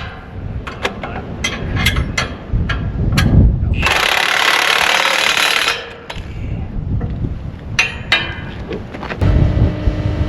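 Metal knocks and clinks of tools working on skid steer bolts. A harsh noisy burst lasts about two seconds near the middle, and a low rumble starts near the end.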